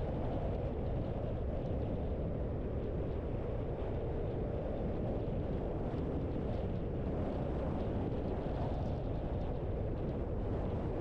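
A car driving along: steady road and engine noise, a dense low rumble at an even level with no breaks.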